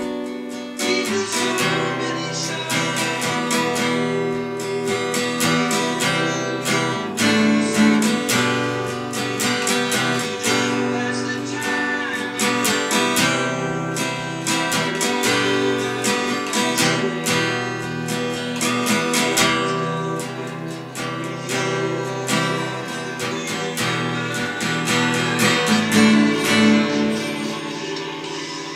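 Steel-string acoustic guitar strummed in a steady rhythm, working through the chord progression G, B minor, C, E minor, C, D, G, the chords changing every few seconds.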